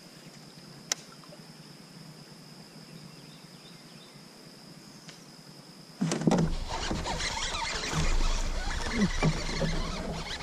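A faint, steady high insect drone over quiet water, with one sharp click about a second in. About six seconds in, a sudden loud burst of splashing and gear-handling noise starts as a river bass is hooked and fought from the kayak.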